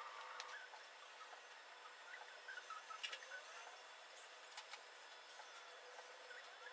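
Near silence, with a few faint scattered clicks and short faint chirps.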